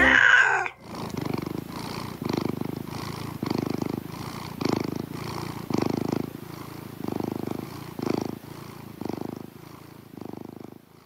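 Domestic cat purring, swelling and easing with each breath about once a second, fading out near the end.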